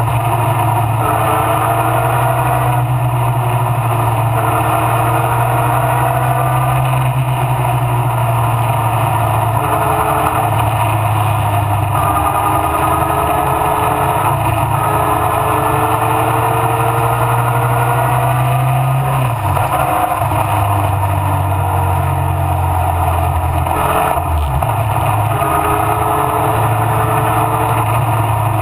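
Mallock Mk8B racing car engine running hard at high revs under race conditions, its pitch rising and falling slightly. The pitch steps down about two-thirds of the way through and dips again briefly a few seconds later.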